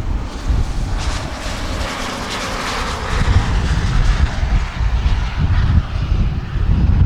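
Wind buffeting the microphone: a low, uneven rumble, with a louder rushing gust swelling about a second in and easing after three seconds.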